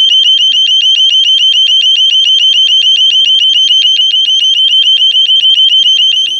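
KF7 burglar alarm sounding its high-pitched piezo siren, a rapid, even pulsing beep that continues unbroken.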